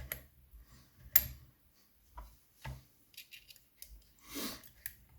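Handling noise from a lever mortice lock and small metal tools being moved about on a surface: scattered light clicks and knocks, the sharpest about a second in, and a short rustling scrape near the end.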